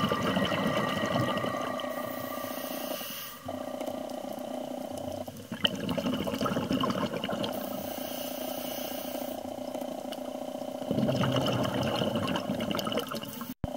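Scuba diver's breathing through a regulator, heard underwater: a hissing inhale about every five and a half seconds between bubbling exhales.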